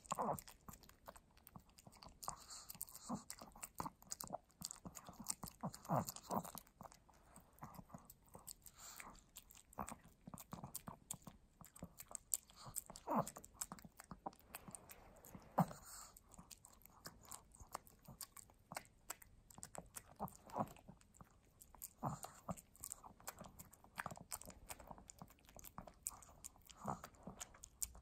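A Pomeranian eating soft wet dog food from a plate: close-up wet chewing with many irregular small clicks and smacks.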